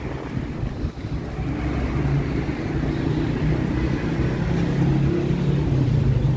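Street traffic: car engines running close by, one engine's steady hum growing louder from about a second and a half in.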